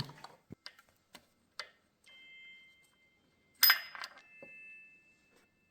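Light metallic taps and clicks from tools working on engine parts. A sharp metal-on-metal strike comes about two-thirds of the way in, and the struck metal rings on afterwards with a clear, steady tone.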